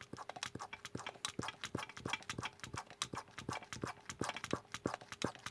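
Hand-operated vacuum pump being squeezed rapidly to draw a vacuum on a chainsaw fuel tank, each stroke a sharp click, several a second.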